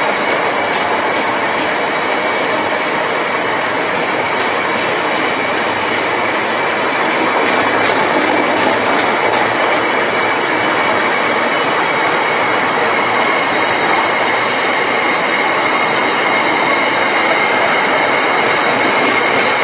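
A freight train's bogie hopper wagons rolling past at speed: a loud, steady rumble and rattle of wheels on rail. A run of sharp wheel clicks over the rail joints comes about eight seconds in, over a thin wheel squeal.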